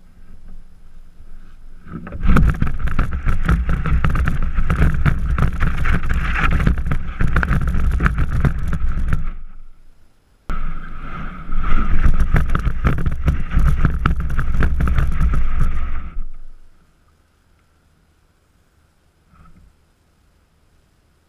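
A camera sled dragged over grass: a loud scraping, rattling rumble with many knocks. It runs in two long stretches, stops briefly about ten seconds in and ends about sixteen seconds in, and near silence follows.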